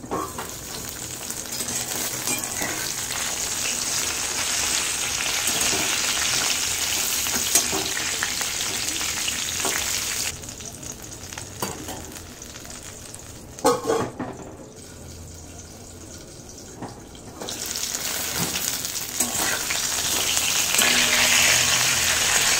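Halved eggplants shallow-frying in oil in an aluminium kadai: a steady sizzling hiss that dies down for several seconds in the middle, then comes back louder near the end as a metal spatula turns the browned pieces. A couple of sharp knocks come about halfway through.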